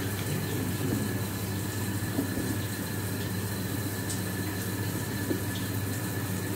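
A steady low mechanical hum with a couple of faint clicks.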